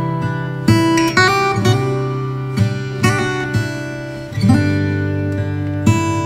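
Background music: acoustic guitar, plucked and strummed, with a new chord or note about every second.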